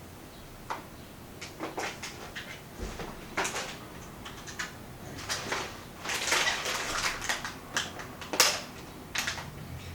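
Toner cartridge packaging being opened by hand: scattered clicks and knocks of handling, with a longer crinkling rustle about six seconds in and a sharp click near the end.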